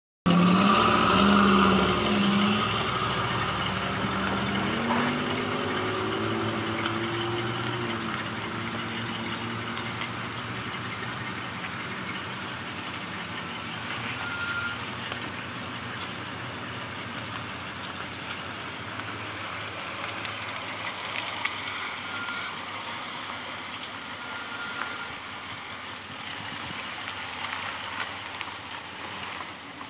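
A 1966 Cadillac Fleetwood 75's 429 V8 running, loudest in the first few seconds. Its pitch rises and falls briefly about five to eight seconds in. The engine then fades to a faint hum under tyre and road noise as the car moves away.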